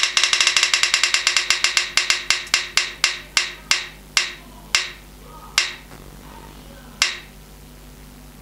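Ticking sound effect of a phone app's spinning prize wheel: rapid clicks that slow down steadily, the last few well apart, until the wheel comes to rest about seven seconds in.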